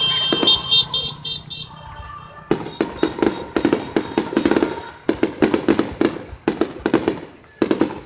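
Aerial fireworks display: a dense run of sharp cracks and pops from bursting shells, starting about two and a half seconds in and coming in clusters. Before that, a high steady tone breaks into short pulses and stops about a second and a half in.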